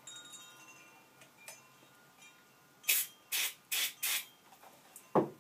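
Aerosol spray can fired in four short hissing bursts in quick succession, followed by a single thump just before the end.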